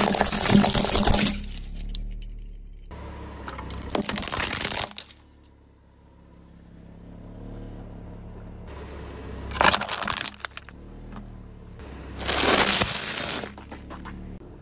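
A car tyre rolling over and crushing plastic toys and other objects, with four separate bursts of cracking and crunching, each lasting about a second, with quieter pauses between them.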